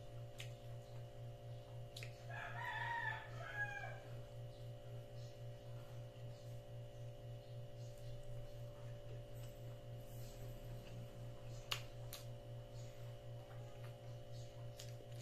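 A rooster crows once, a call of a little under two seconds starting about two seconds in, over a steady low hum with a faint regular pulse. A sharp click comes near the end.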